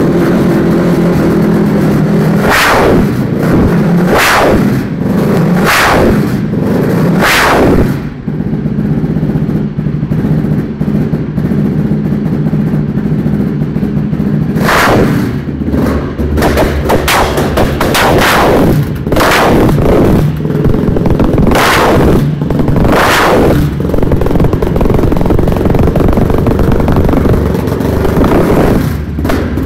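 A 450 engine revved hard in repeated blips, with loud sharp bangs from the exhaust on the revs. It drops back to a steady run for several seconds about eight seconds in, then revs and bangs again.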